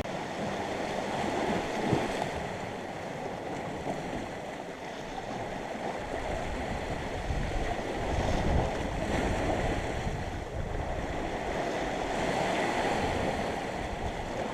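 Sea waves washing steadily against the shore, with wind gusting on the microphone.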